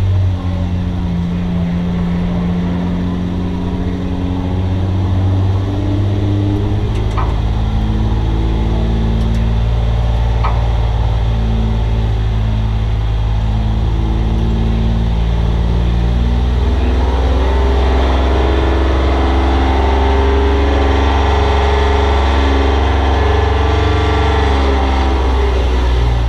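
Race car engine heard from inside the stripped-out cockpit, running hard around an oval. Its note changes about six seconds in and grows fuller and louder through the second half as the car accelerates.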